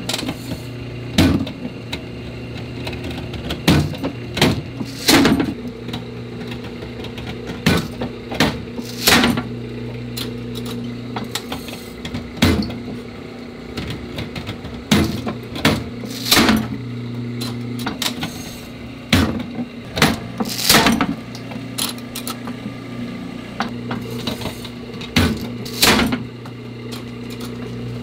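Puffed rice cake machine running with a steady electric hum. About a dozen sharp pops come at uneven gaps of one to three seconds, as the heated mold bursts open and each rice cake puffs out.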